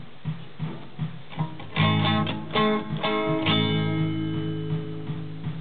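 Guitar chords strummed through a 1978 LEM Baby tape echo mixer-amplifier: a few strong strums about two seconds in that ring out slowly, over a faint regular pulse about two or three times a second.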